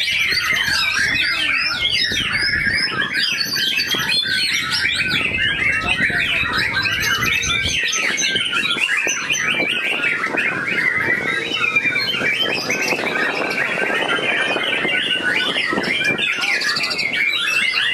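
White-rumped shamas (murai batu) singing without pause: a dense, loud stream of quick rising and falling whistles and chattering phrases, several caged birds overlapping.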